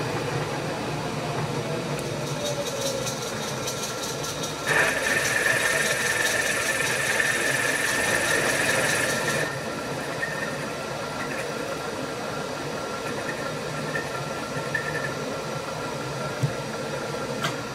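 Milling machine spindle running with a boring bar in a boring head, boring out a hole in an 8 mm plate. From about five seconds in to about nine and a half seconds the bar is cutting, adding a louder, steady high whine over the motor; the machine then runs on more quietly.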